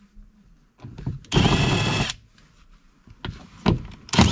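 Cordless drill driving a 7mm socket on an extension, running in two short bursts to back out the A-pillar grab handle bolts. The motor whine drops in pitch as the second burst winds down, and a few small clicks come between the bursts.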